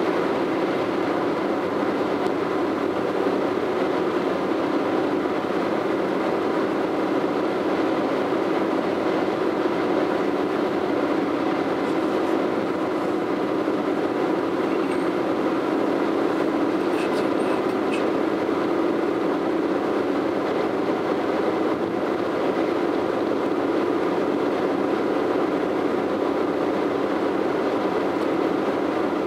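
Steady drone of a car travelling along a highway, heard from inside the cabin: tyre and road noise mixed with the engine, holding an even pace throughout.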